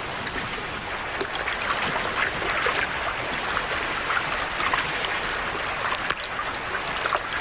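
A shallow salmon creek running, with small irregular splashes throughout.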